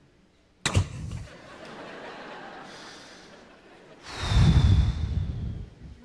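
A single sharp slam-like thud just under a second in, as the comedian acts out shutting the cab door on stage. About four seconds in comes a long heavy sigh blown close into the microphone.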